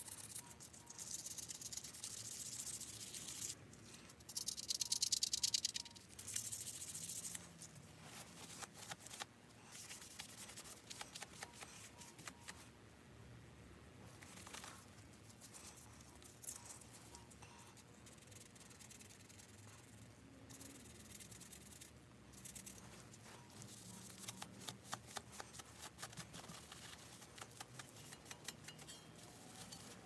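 A cloth being rubbed in strokes over the black-painted sheet-metal boiler wrapper of a live-steam model locomotive, making a scrubbing hiss. It is loudest in the first several seconds, then gives way to softer scuffs and light handling clicks.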